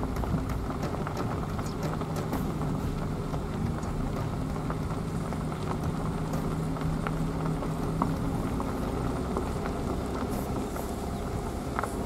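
Car engine running at low speed, heard from inside the car, as a steady low rumble with a low hum that drops away about two-thirds of the way through and scattered small clicks and knocks.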